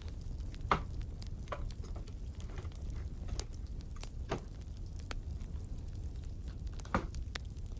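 Wood fire crackling: irregular sharp pops and snaps over a steady low rumble, with a few louder pops.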